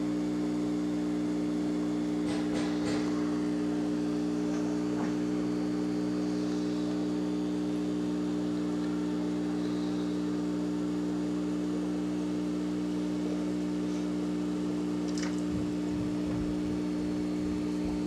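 A steady electrical hum with a few faint clicks.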